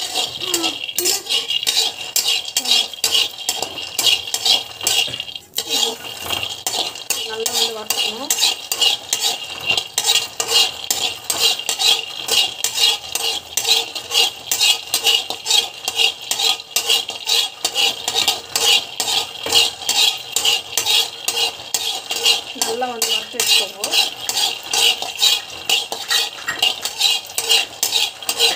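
Peanuts being stirred as they dry-roast in a kadai: a spatula scrapes the pan and the nuts rattle against it in a steady rhythm of about three strokes a second.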